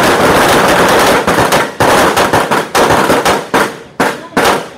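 Several M4 carbines firing from a covered firing line: shots from many shooters overlap into a continuous echoing clatter, then thin out to separate single shots about two seconds in.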